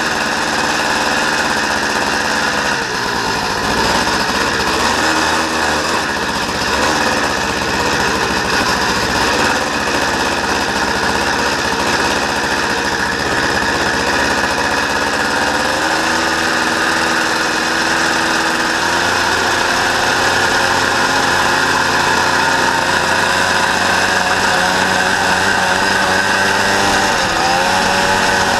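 Honda Odyssey FL350R buggy's single-cylinder four-stroke engine running while driving, its pitch rising and falling with the throttle and climbing near the end.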